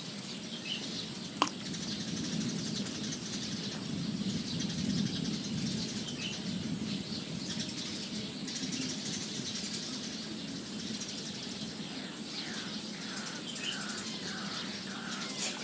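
Rural outdoor ambience: a steady rushing background noise with one sharp click about a second and a half in. Near the end a bird calls in a quick run of about six short falling chirps.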